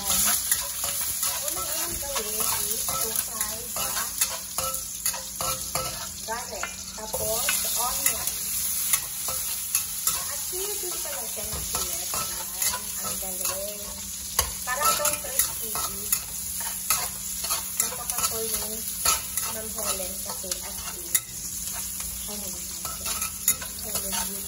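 Garlic and onions sizzling in hot oil in a honeycomb-textured steel wok, with a metal spatula stirring and scraping against the pan in frequent sharp clicks.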